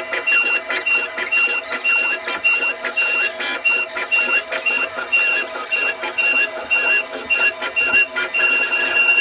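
CNC router cutting wood: a high whine that comes and goes about twice a second, then holds steady near the end.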